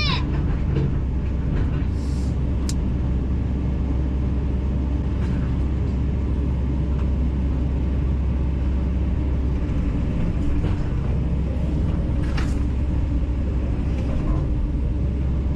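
Heavy engine running steadily, a deep, even rumble.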